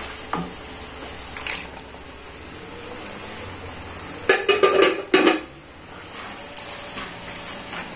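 Cookware clatter as sliced mushrooms, capsicum and onion go into a kadai of frying masala: a light knock about a second and a half in, then a quick run of loud clinks and knocks about four to five seconds in, over a faint steady sizzle.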